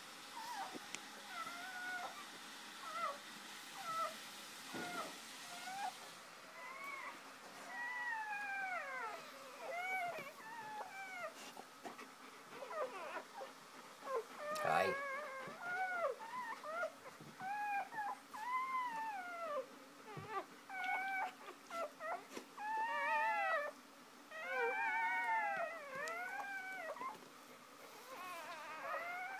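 Newborn puppies squeaking and whimpering: many short, high calls that rise and fall in pitch, coming thicker and overlapping in the second half. A single sharp knock about halfway through.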